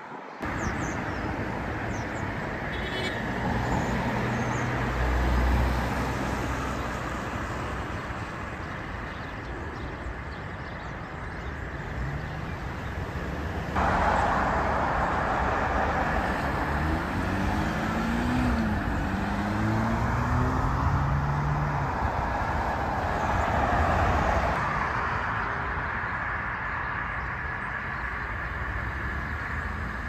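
Road traffic passing on a multi-lane road: steady tyre and engine noise from cars going by, louder for about ten seconds in the middle. Partway through, an engine note rises in steps as a vehicle accelerates away.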